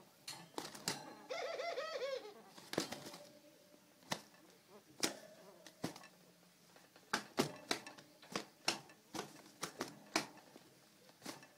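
A caged dove gives a short run of quick, rapid coo calls about a second and a half in, then a series of sharp slaps and knocks as it raises and beats its wings against the cage in an aggressive display.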